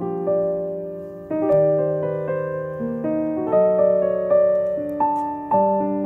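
Background piano music: slow notes and chords, each struck and left to fade.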